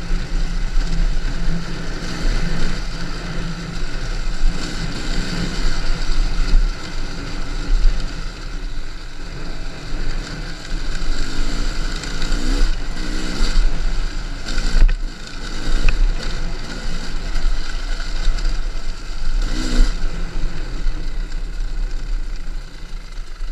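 Enduro motorcycle being ridden off-road, its engine revving up and down with the throttle, over wind noise on the microphone. A couple of short knocks are heard in the second half.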